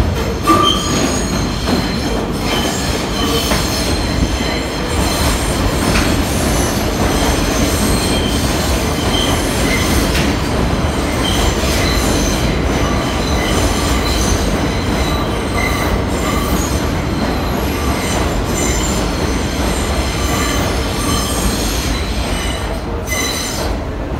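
1984 Kawasaki-built R62 New York City subway train pulling into an underground station and running past at close range: a loud, steady rumble of wheels on rail, with high metallic wheel squeal ringing on and off throughout. The noise eases a little near the end as the train slows to stop.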